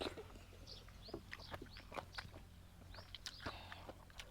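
Birds calling in many short, high chirps, with a few sharp clicks among them over a steady low hum.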